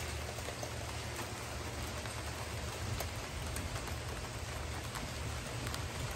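Steady rain falling, with a few sharper drop ticks on hard surfaces.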